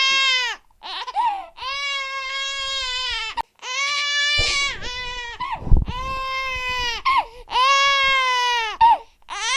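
An infant crying hard: a string of about five long, high wails, each a second or more, breaking off with short catches of breath between. A low thump sounds about halfway through.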